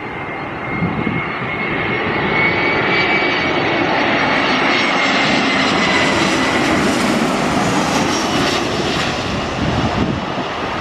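Jet engines of a Citilink Airbus A320 on final approach as it passes low overhead to land: a loud, steady rushing noise with a high whine. The sound builds over the first two seconds and stays loud until near the end. The whine rises slightly, then drops as the airliner goes by.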